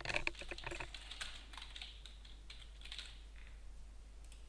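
Typing on a computer keyboard: a quick run of keystrokes in the first second, then scattered single key presses.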